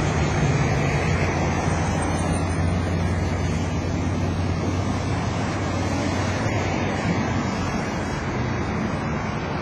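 Steady street-traffic noise: a continuous rumble with a low hum underneath, easing off slightly toward the end.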